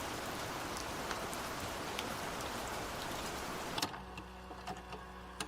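Steady rain: an even hiss with scattered drop clicks. It cuts off abruptly about four seconds in, leaving a quieter low steady hum with a few faint ticks.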